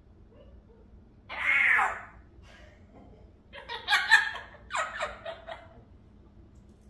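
African grey parrot calling: one drawn-out call with a bending pitch about a second and a half in, then a string of short, choppy squawks and chatter from about four to five and a half seconds.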